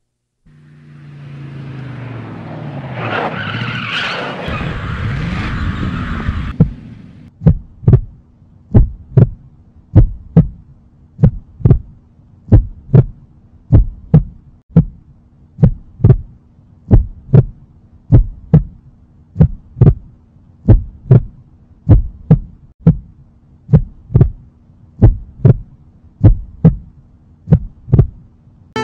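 A motorcycle speeding and its tyres skidding, rising for several seconds and then cutting off. This is followed by a steady heartbeat sound effect, double beats about once a second, over a faint low hum.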